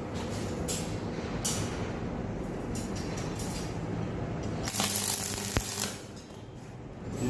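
Stainless-steel welding: a steady low hum with irregular crackling and hissing bursts, loudest for about a second around five seconds in.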